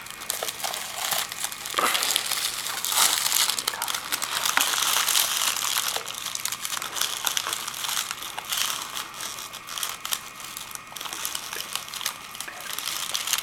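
Paper crinkling and rustling as a small gift is unwrapped by hand, in a continuous run of crackles.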